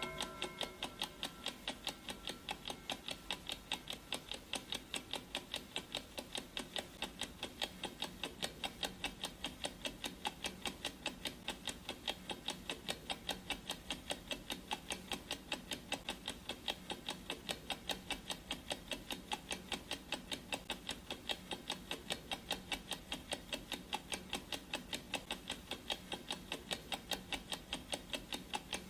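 Clock-ticking sound effect: steady, evenly spaced ticks that run on without change. In the first second the last of a gong's ring fades away beneath the ticking.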